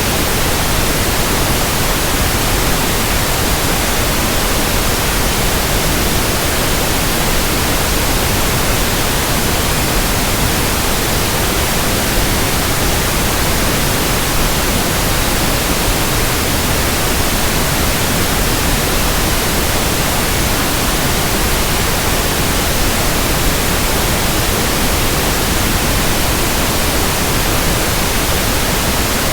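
Synthetic pink noise: a steady, even hiss spread across all frequencies, unchanging throughout, used as a tinnitus sound-matching sample.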